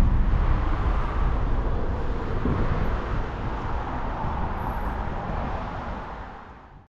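Outdoor city ambience: a steady rumble of road traffic and general street noise. It slowly fades out near the end.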